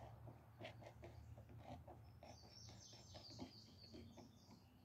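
Near silence: a screwdriver scraping and ticking faintly on a lawn mower engine, with faint birds chirping from about halfway through.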